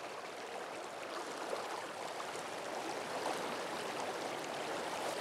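Mountain river flowing: a steady rush of running water, growing a little louder near the end.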